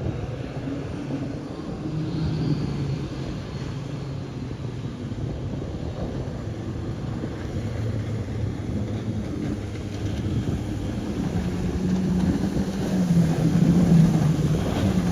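Mini jet boat's engine running out on the water, its note rising and falling with the throttle and getting louder near the end.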